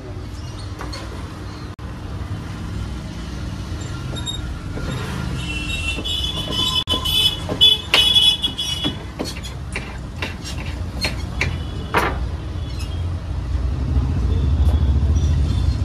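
Road traffic: vehicle engines running steadily, one growing louder near the end, with a cluster of high steady tones in the middle and scattered sharp clicks and knocks.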